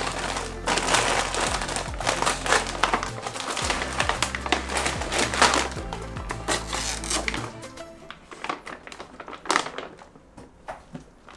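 A plastic snack bag crinkling and crackling as it is pulled open, a packet that is hard to open, over background music with a steady bass line that stops about seven and a half seconds in. After the music stops, only faint, scattered crinkles remain.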